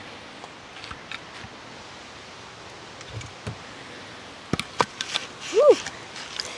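Rustling and a few sharp clicks and knocks of gear being handled, busiest in the second half, with one short rising-and-falling tone about five and a half seconds in.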